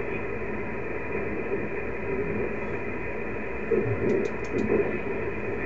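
Amateur HF transceiver receiving on the 17-meter band between CQ calls: a steady hiss of band noise, held within a narrow single-sideband passband, with a few faint steady tones in it. A few light clicks come about four seconds in.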